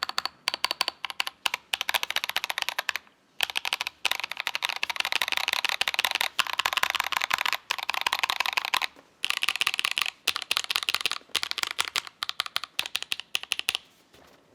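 Melgeek Mojopad mechanical keyboard with lubed Gazzew Boba U4T tactile switches on an aluminium plate, being typed on: fast runs of keystrokes broken by a few short pauses. The typing stops shortly before the end.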